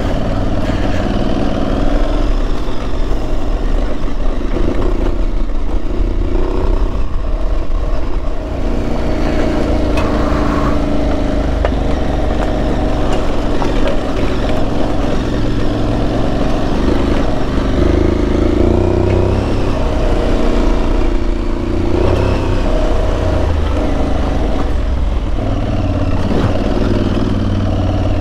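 Aprilia Tuareg 660's parallel-twin engine running under load on a rough dirt trail, its revs rising and falling with the throttle.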